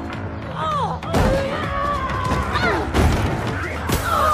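Fight-scene sound effects: heavy punch and body-impact hits, one about a second in and more near three and four seconds, with short grunts and cries of effort from women fighting.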